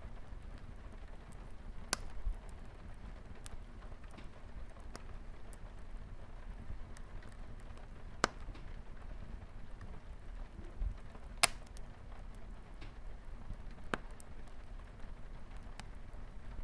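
Crackling wood fire in a fireplace with light rain on a window: a steady rain hiss under scattered small ticks and a few sharper pops from the fire, the loudest about eight and eleven seconds in.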